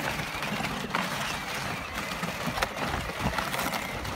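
Kids' battery-powered ride-on quad driving over dry dirt and grass: its plastic wheels rolling and rattling on the rough ground, with a few sharp clicks.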